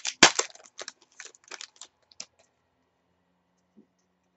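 A stack of trading cards being flicked through by hand: a quick run of short papery clicks and slides for about two seconds, the loudest just after the start, then quiet.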